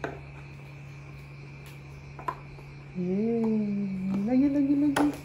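Light taps and clicks of foam fridge magnets and a plastic storage box, sharpest near the end, over a steady low hum. From about three seconds in, a voice hums a drawn-out sound with no words.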